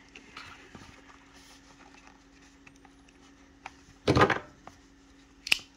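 A cardboard knife box handled with faint rustles and taps, then set down on a tabletop with a loud knock about four seconds in. A short sharp click follows about a second and a half later.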